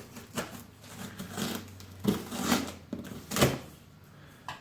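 Delivered boxes being handled: a series of knocks, scrapes and rustles, loudest around two to three and a half seconds in.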